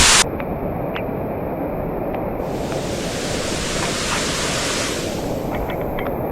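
Steady rushing of storm-swollen water from the creek and waterfall, an even roar with a few faint ticks near the end.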